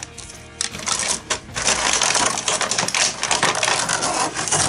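Hard plastic toy railway track sections clicking and clattering against each other and against a thin plastic packaging tray as they are pulled out of it. The clicks are sparse at first and come thick and fast from about a second and a half in.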